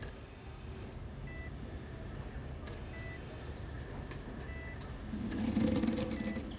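Hospital bedside patient monitor beeping, one short high beep about every one and a half seconds, over a low steady room hum. Near the end a louder low swell with crackly rustling rises briefly.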